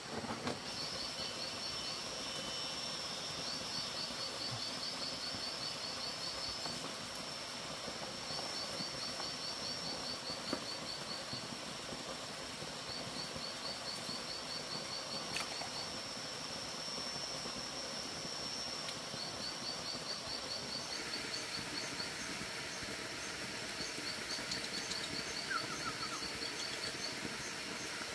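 Forest ambience: a steady high-pitched insect drone over a constant rushing background, with a rapid high chirping trill that comes back every few seconds and lasts two to three seconds each time.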